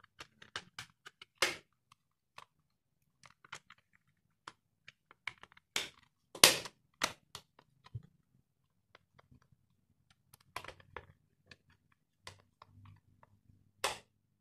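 Irregular clicks and taps of a plastic multimeter case being handled and a screwdriver driving its back-cover screws in, the loudest knock about six and a half seconds in.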